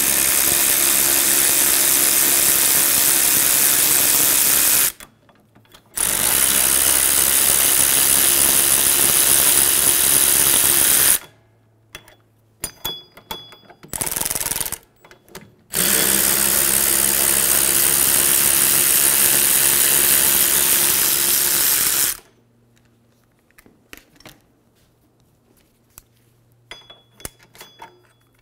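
Powered ratchet on a 14 mm socket unscrewing the rear wheel bearing's mounting bolts from the knuckle: three long runs of several seconds and one short burst, each stopping abruptly. In the last few seconds the motor is off and there are only light metal clicks and taps.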